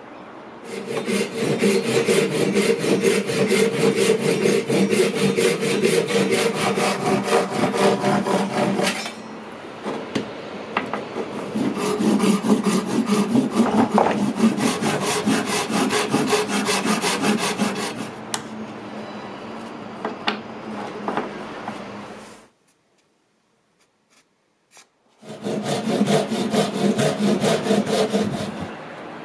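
Hand saw cutting through a block of colored pencils set in epoxy resin, in fast back-and-forth strokes. The sawing comes in loud spells with lighter stretches between, and stops for a couple of seconds before a last loud spell near the end.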